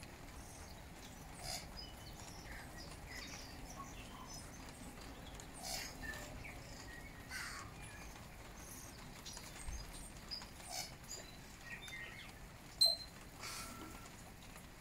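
Tui calling intermittently from the cherry trees: scattered short high notes and clicks with pauses between, one louder call near the end.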